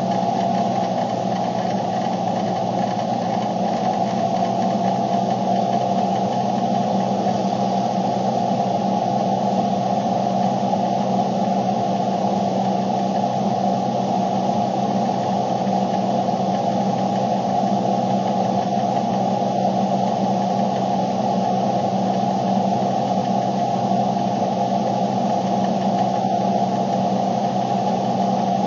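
Steady, unchanging drone of a vehicle's running engine heard from inside the cabin.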